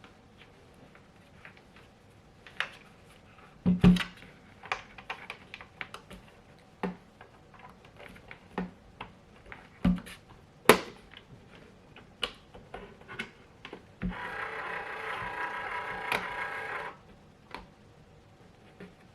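Cables, plug and plastic parts being handled: scattered clicks and knocks, with the sharpest about four and eleven seconds in. About fourteen seconds in, a steady whirring tone runs for about three seconds and stops.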